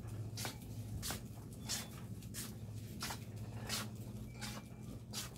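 Footsteps at an even walking pace, about three steps every two seconds, over a steady low hum.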